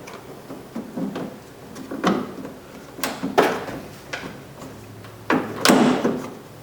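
Replacement exterior door handle being worked into place in the truck's door shell: a run of irregular knocks, clunks and rattles, the loudest about halfway through and near the end.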